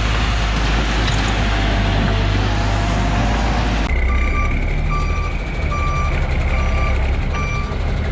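A heavy diesel machine running loud for about four seconds; then, after an abrupt change, a reversing alarm beeps five times, a little over once a second, over a steady diesel engine hum.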